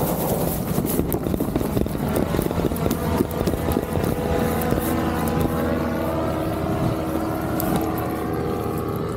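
Small aircraft motor running steadily in flight, with wind rushing over the microphone.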